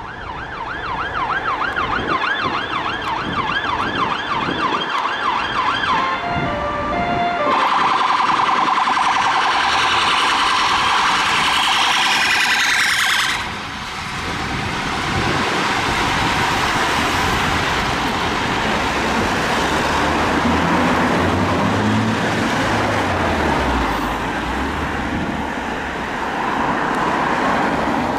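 Emergency vehicle siren sounding in a fast rising-and-falling yelp. It changes pattern about six seconds in and cuts off abruptly about halfway through. After that comes the road and engine noise of passing vehicles.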